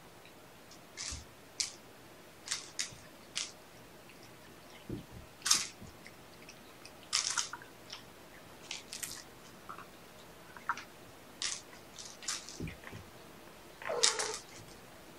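Kittens playing with a dangled toy: scattered brief rustles and scuffs, a couple of soft thumps, and a longer, louder scuffle near the end.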